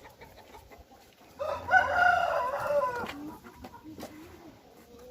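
A rooster crowing once: a single loud call of about a second and a half, near the middle, that drops away at the end.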